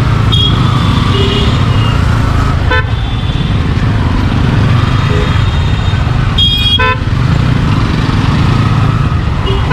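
Road noise from a motorcycle ride: a steady low engine-and-wind rumble, with several short vehicle horn toots, the longest about two-thirds of the way through.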